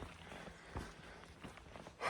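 A few faint, irregular scuffs and taps over quiet outdoor background noise.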